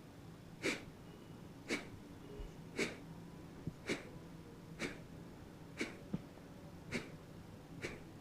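Kapalabhati breathing: eight short, forceful exhalations expelled through the nose, about one a second.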